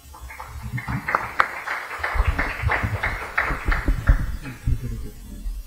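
Audience applauding, building up within the first second and dying away about four and a half seconds in.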